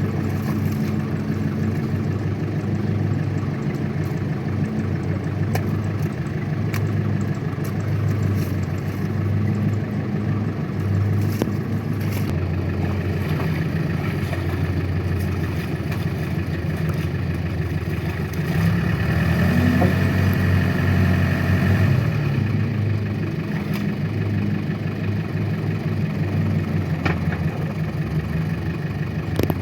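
Tractor engine running steadily. About two-thirds of the way in it is revved up for a few seconds, the pitch rising and then dropping back to a steady run.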